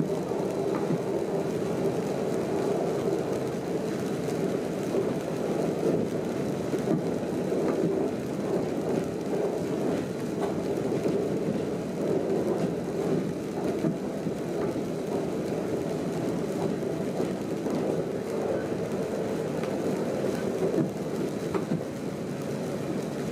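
A train running at speed, heard from inside the driver's cab: a steady rolling rumble and hum, with heavy rain on the cab.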